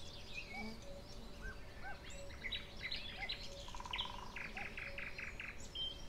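Several wild birds singing at once: overlapping chirps, short whistled notes and trills, among them a buzzy trill about four seconds in followed by a quick run of repeated notes.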